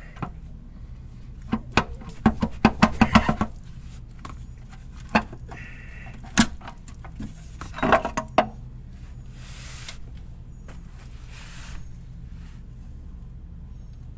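Oil pan of a Mk5 R32's VR6 engine being worked loose by hand from the engine block: a quick run of metal knocks and clinks, then single knocks and another cluster of clinks, followed by two short rushes of scraping noise near the end.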